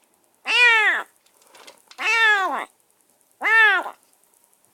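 A stray kitten meowing loudly and repeatedly: three meows, each rising then falling in pitch, about a second and a half apart. It is calling from a cage in unfamiliar surroundings.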